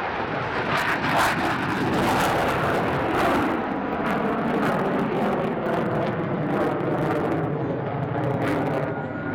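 Lockheed Martin F-22 Raptor's twin F119 turbofan engines at full takeoff thrust as the jet climbs steeply away: a loud, continuous jet noise with a ragged crackle in the first few seconds and a slowly falling tone in the second half as it pulls away.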